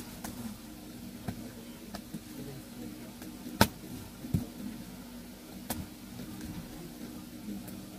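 Cardboard carton being opened with scissors: snips through the packing tape and the flaps being pulled back, a scatter of short clicks and rustles with one sharp snap about three and a half seconds in. A faint steady hum runs underneath.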